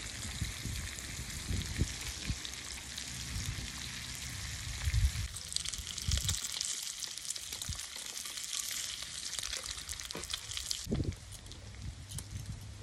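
Bacon sizzling in a cast-iron wok over a wood fire, a steady hiss of spitting fat that grows louder for a few seconds midway and eases near the end. Occasional low thumps sound underneath.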